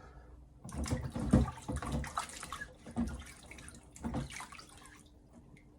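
Water splashing and trickling in uneven bursts, dying away near the end.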